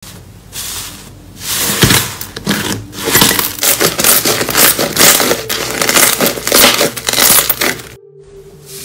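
Hands pressing and squeezing thick slime: dense, rapid wet crackling and clicking, quieter after a cut about eight seconds in.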